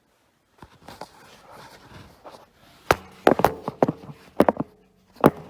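A run of sharp knocks and taps, mostly from about three seconds in, the loudest a cluster near three and a half seconds and another near five seconds.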